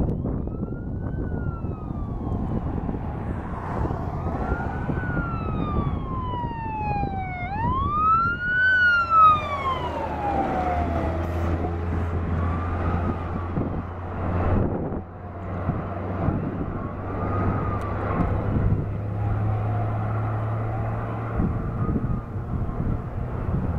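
Fire department water tender's siren wailing up and down, loudest about nine seconds in as the truck passes, then fainter as it drives away. Its diesel engine drones underneath in the second half, over wind rumble on the microphone.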